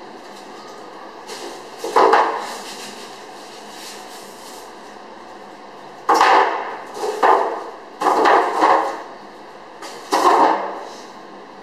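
A series of loud knocks and bangs while a refrigerator is being unpacked from its carton by hand. There is one about two seconds in, then four more close together in the second half, each dying away quickly.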